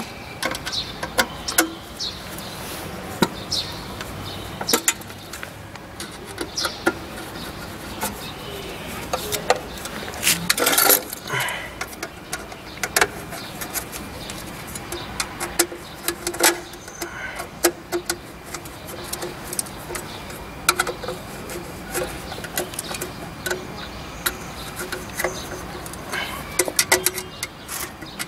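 Irregular metallic clicks and taps as screws are driven by hand screwdriver into the steel frame of an eyelet machine, with a louder clatter of metal parts about ten seconds in.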